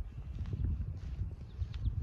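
Wind buffeting the microphone as an uneven low rumble, with a few faint bird chirps.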